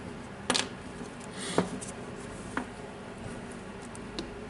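Handling noise from the disassembled cordless drill's plastic switch and controller assembly being turned over in gloved hands: four small clicks and scrapes about a second apart, the loudest about half a second in.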